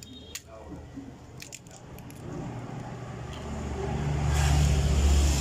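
A few small cracks and clicks of mud crab shell and legs being broken apart by hand over a metal basin, then a motor vehicle passing close by, its engine growing louder over the last few seconds to become the loudest sound near the end.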